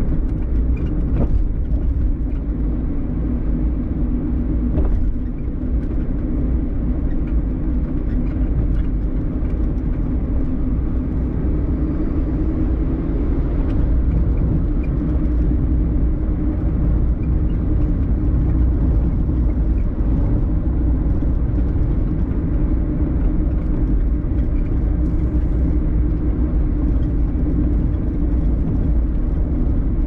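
Steady low rumble of a car driving, heard from inside the cabin: tyre and engine noise with a constant low hum.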